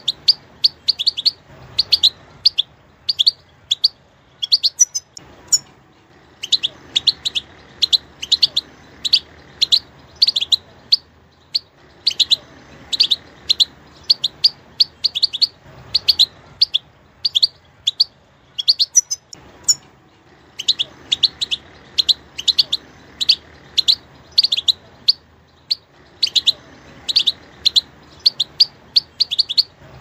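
European goldfinch calling: runs of short, high chirps at about three a second, in bursts of several seconds broken by brief pauses.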